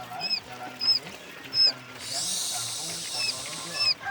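Newly hatched quail chicks peeping: short, high cheeps repeating about two or three times a second. A steady hiss joins in about halfway through and stops just before the end.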